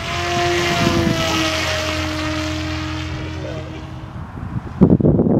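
Turnigy brushless electric motor and APC 10x6 propeller of a 48-inch foam flying wing in flight: a steady whine that slowly drops in pitch and fades about four seconds in. A loud rough burst of noise follows near the end.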